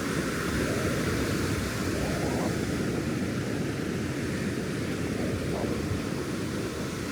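Steady rushing noise of breaking ocean surf along the beach.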